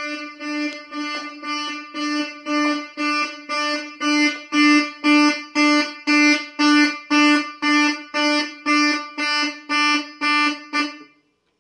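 Keyboard-synthesized imitation of a Simplex 2901-9806 fire alarm horn sounding in march time: a horn tone pulsing evenly twice a second (120 per minute). It grows louder over the first few seconds and stops about eleven seconds in.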